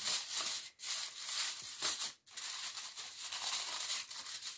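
Aluminium foil crinkling as hands press and crimp it down over the edges of a baking tray. An irregular crackle that drops out briefly twice.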